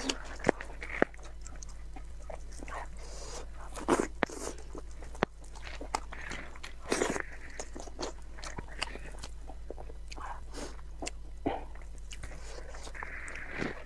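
Close-miked eating of braised meat: gloved fingers pulling the meat apart and wet chewing and mouth sounds, with scattered sharp clicks and short smacks over a steady low hum.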